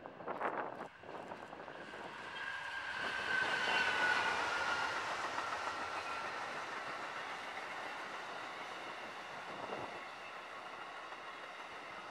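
Amtrak passenger train passing close by, locomotive first and then a string of coaches. The wheels click over rail joints, and a high whine falls slightly in pitch as the loudest part goes by, about 4 seconds in.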